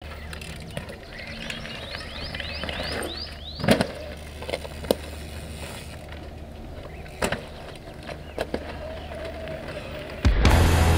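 Electric mountain bike ridden over a loose dirt trail: tyres rolling and crunching on gravel, with several sharp knocks as the wheels come down. A quick run of short, high, rising chirps comes a couple of seconds in. Loud music cuts in near the end.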